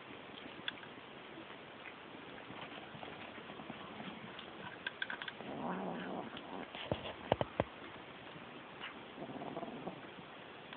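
Kitten eating dry cat food from a bowl, with faint crunching and small clicks. A cat growls low and rough about halfway through and again near the end as a second cat shares the bowl.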